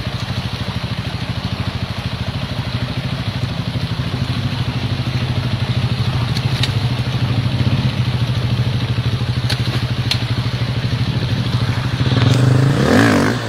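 Enduro dirt bike engine running at low, steady revs with a rapid, even pulse, growing louder near the end. A few light clicks in the middle.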